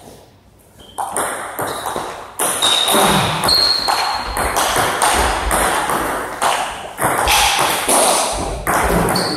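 Table tennis rally: the ball clicking off rackets and the table in quick succession, several hits a second, starting about a second in.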